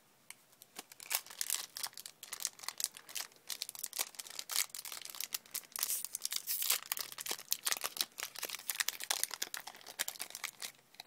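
Foil Yu-Gi-Oh booster pack wrapper crinkling in the hands and being torn open: a dense, irregular run of sharp crackles.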